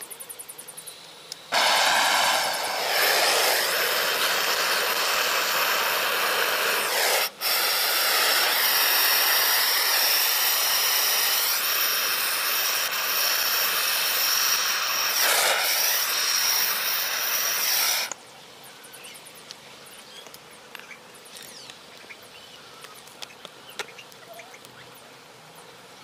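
Handheld butane gas torch running with a steady loud hiss as it heats a metal ball in a bowl of corn kernels. It breaks off for an instant about seven seconds in and shuts off after about sixteen seconds, leaving only faint scattered ticks.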